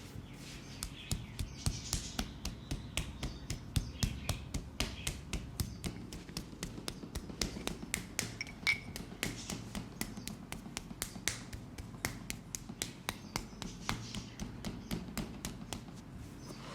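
A rapid, even series of sharp taps, about four a second.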